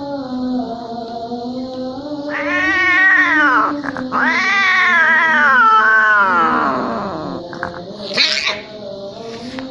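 Domestic cats mating: two loud caterwauls, the first rising and falling over about a second and a half, the second longer and sliding down in pitch at its end. Near the end a short harsh hiss follows as the pair breaks apart.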